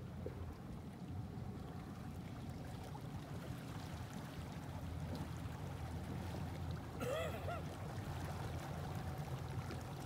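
Motorboat engine running at low speed, a steady low rumble. About seven seconds in, a brief high call with a rising-and-falling pitch sounds over it.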